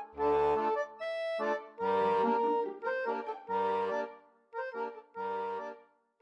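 Accordion playing a tune in short phrases separated by brief gaps, with low bass notes under some of the phrases.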